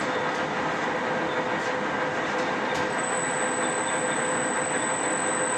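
Big engine lathe's power feed driving the cross slide and compound, giving a steady mechanical whir with steady tones through it. A thin high whine comes in about three seconds in, as the variable-speed drive is wound up.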